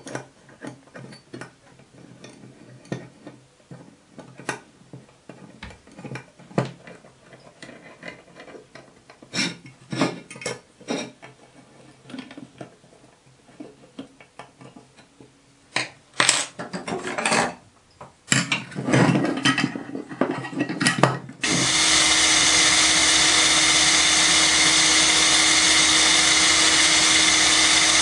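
Light scattered metal clicks and taps of an Allen key and screws being worked into an aluminium bracket. About three quarters of the way in, a cordless drill starts and runs steadily, drilling a hole in the lathe's cross slide.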